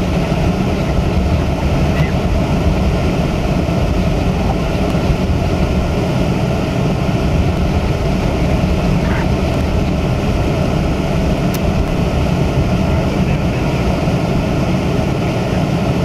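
Steady low rumble of a car driving on a snow-covered road, its engine and tyres heard from inside the cabin.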